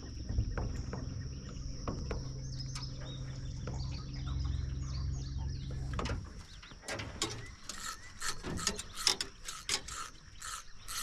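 Electric trolling motor humming low and steady, cutting off about six seconds in, followed by a run of rapid irregular clicks from a fishing reel's ratchet.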